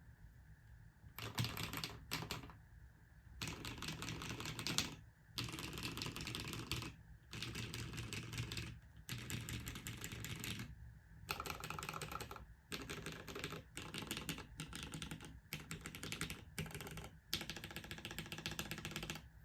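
Typing on a Hineybush HBCP mechanical keyboard with lubed linear Cherry MX Retooled Black switches in a full FR4 plate and GMK keycaps. The keystrokes come in runs of quick clacks, one to two seconds each, with short pauses between.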